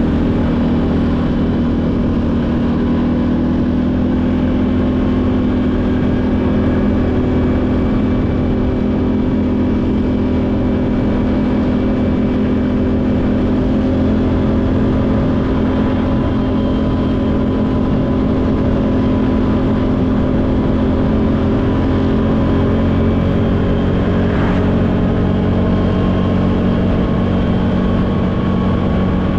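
ATV engine running steadily under way, its pitch drifting slowly up and down with no sharp revving.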